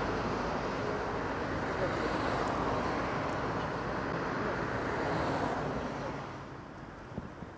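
Steady rush of motorway traffic passing at speed, fading out about six seconds in.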